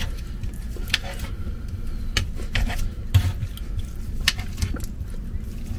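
Knife and fork scraping and clicking against a plate while slicing grilled tri-tip, in scattered taps and scrapes.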